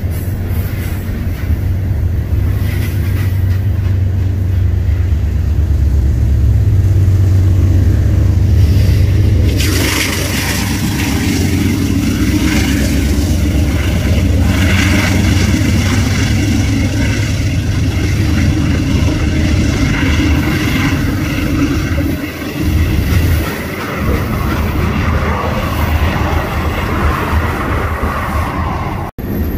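Long diesel-hauled freight train rolling past close by, a steady heavy low rumble. About ten seconds in, brighter wheel-on-rail noise joins it as a mid-train diesel locomotive passes beneath.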